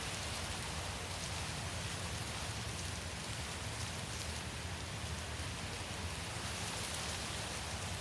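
Wind blowing steadily, a continuous rushing hiss with a low rumble beneath it and no distinct gusts.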